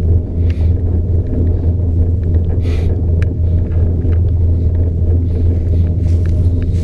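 Steady low rumble and hum inside a Poma four-seat detachable gondola cabin travelling along its haul rope, with a few light clicks and rattles.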